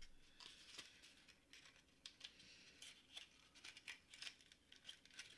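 Faint small clicks and rustling of hands handling a metal locket and its packaging.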